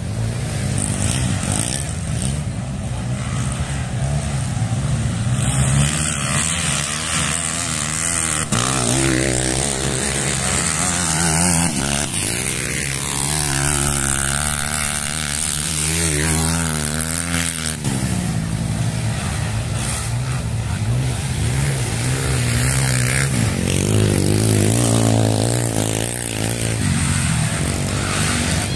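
Drag-racing motorcycle engines revving and running, their pitch sweeping up and down several times as the bikes accelerate and ease off.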